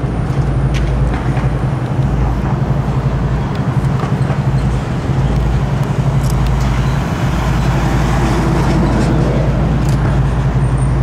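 Steady low rumble and hum of road traffic and running vehicle engines, with no single standout event.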